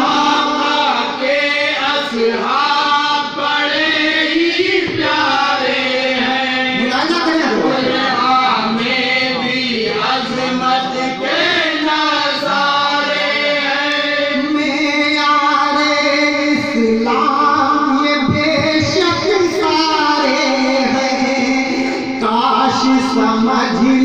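A man singing an Urdu devotional kalam into a microphone, in long bending sung phrases over a steady held low note.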